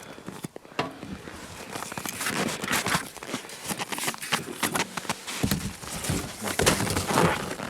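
Irregular rustling, crinkling and light clicks of hands handling the tent stove and its parts.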